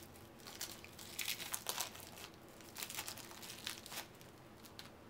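Plastic wrapping being torn open and crumpled off a sealed deck of trading cards: a series of crinkles and crackly rustles in clusters over about four seconds.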